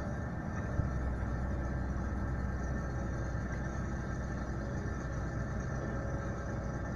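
Steady low rumble of heavy diesel engines: a Komatsu PW140 wheeled excavator working while it loads soil into a Tatra 815 truck.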